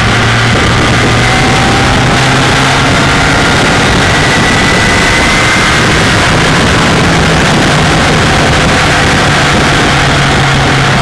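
Kawasaki ZX-10R's inline-four engine running at steady road speed under a loud rush of wind and wet-road noise; the engine note steps up slightly about six seconds in.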